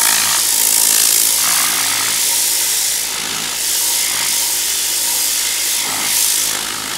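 Tornador Z-010 S compressed-air cleaning gun hissing as its spinning tube blows air and diluted cleaner into a fabric chair seat. The hiss rises and falls as the nozzle is worked over the upholstery.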